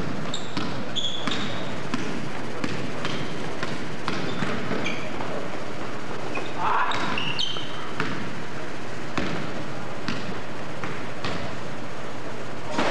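Basketball bouncing on a hardwood gym floor during play: irregular sharp thuds that ring in the large hall, with short high sneaker squeaks.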